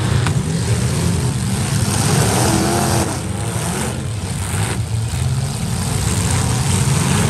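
Several demolition derby cars' engines running and revving together in a steady, loud rumble.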